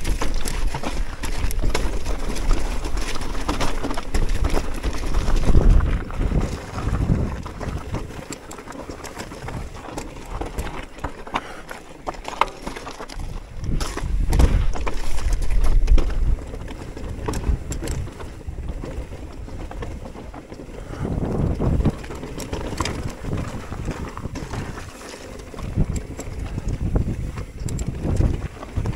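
Mountain bike descending a rocky trail: tyres crunching and rattling over stones, with frequent sharp clicks and knocks from the bike. Wind buffets the microphone in low rumbling surges.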